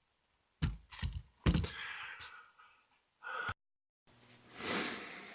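A few dull knocks and some scraping and rubbing, then, after a break in the recording, a swell of hiss-like rustling that rises and fades.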